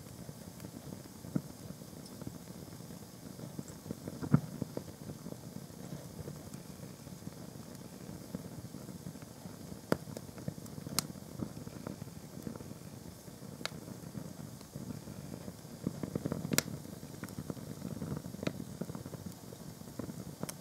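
Fire burning white canvas plimsolls and paper: a steady low flutter of flames with sharp crackling pops every few seconds, about six in all, the loudest about four seconds in.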